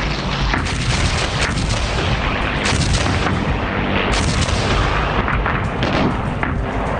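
Heavy gunfire and artillery fire in a dense, continuous barrage, many shots overlapping over a steady low rumble.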